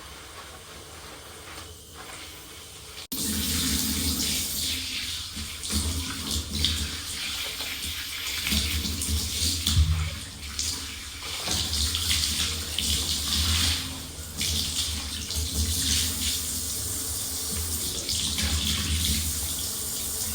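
Water running from a tap, coming on suddenly about three seconds in and then running steadily and loud, after a quieter hiss.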